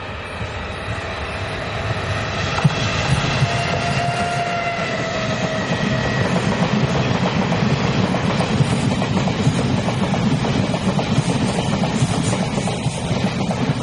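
Taiwan Railway E1000 push-pull Tze-Chiang express train, an electric power car at each end, passing close by. The wheels rumble and clatter over the track, growing louder over the first few seconds as the train nears, then holding loud and steady as the coaches go by.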